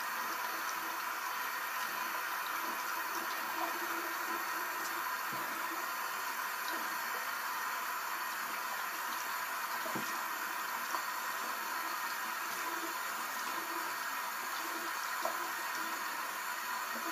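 Bathroom sink faucet running steadily, its stream splashing over a doll's hair as it is rinsed and into the basin.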